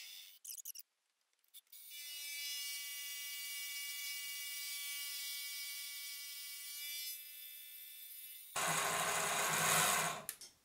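Mini milling machine face-milling aluminium with a 50 mm face mill, its spindle on new tapered roller bearings. The spindle runs with a steady whine, and near the end there is a louder, rougher stretch of cutting noise. There is no chatter in the cut.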